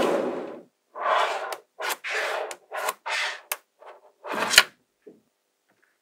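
Small magnetic balls sliding and clicking together, a rasping rattle about every half second, with a sharp click a little past four seconds in.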